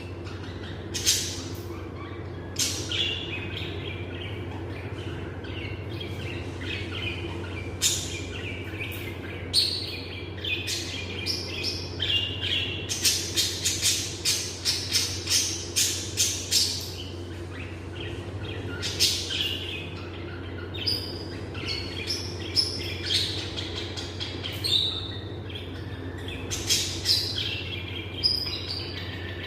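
Pet lovebirds chirping: short, sharp, shrill calls scattered through, with a quick run of rapid calls about halfway, over a steady low hum.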